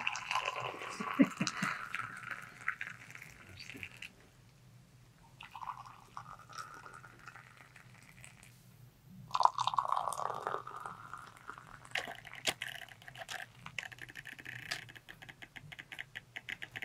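Hot tea poured from a metal kettle into glass cups, one glass after another: four pours of a few seconds each with short pauses between, then a run of quick light clicks near the end.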